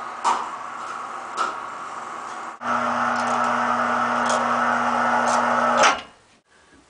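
Power Fist 440 lb electric cable hoist motor running under load, lifting a compressor pump: a steady electric hum with a whine over it that starts suddenly about two and a half seconds in and stops abruptly about three seconds later. Before it there is a steady background noise with two short knocks.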